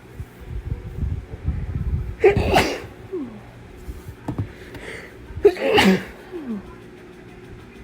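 A person sneezing twice, hard, about three seconds apart, the sneezes set off by chhinkni, a herbal sneezing snuff. A low rumble of breath builds up before the first sneeze.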